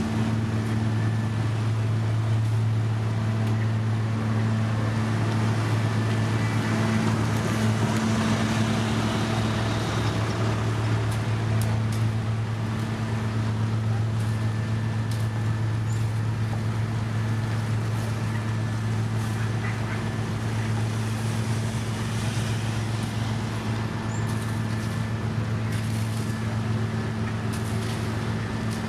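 Diesel engine of heavy road-construction machinery running at a steady speed, a constant low drone.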